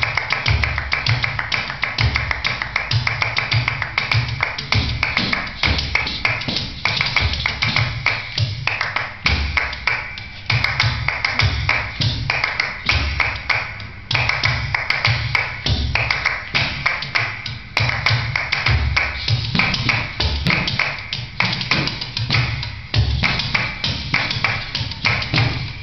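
Music for a kathak fusion dance: fast, dense percussion with rapid tapping strikes over deep drum beats.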